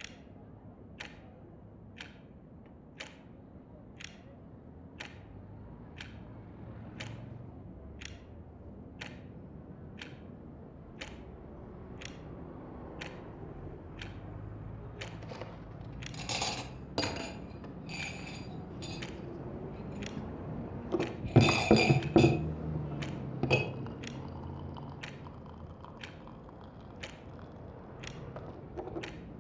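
Indoor ambience: a clock ticking steadily about once a second over a low, steady hum of distant street traffic. A bit past halfway comes a run of china and cutlery clinks, the loudest sounds here, like a cup and saucer being handled.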